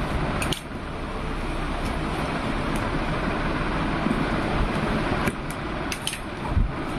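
Cardboard box being cut open and its flap lifted, with a few sharp clicks and rustles about five to seven seconds in, over a steady rushing background noise.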